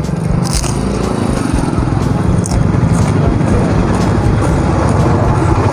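A motor vehicle engine running close by, a steady low drone that grows a little louder; a couple of faint crunches from biting a crisp fried snack.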